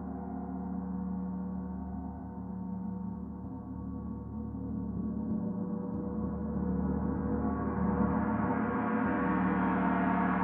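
Paiste Saturn planetary gong, tuned to D at 147.85 Hz, sounding a steady, sustained hum thick with overtones. From about two-thirds of the way in it swells louder and brighter as it is played up again.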